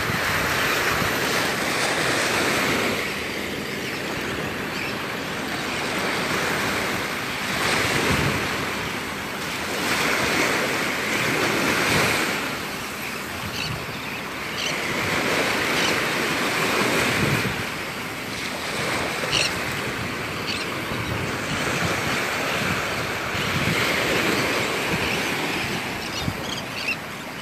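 Small Gulf of Mexico waves breaking and washing up on the beach, the surf swelling and easing every few seconds, with wind buffeting the microphone.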